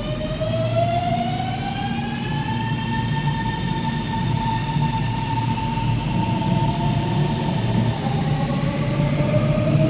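Metro train accelerating away from the platform: its traction motors whine, rising in pitch for the first few seconds and then holding steady, with a second rising whine near the end, over a steady low rumble of the running train.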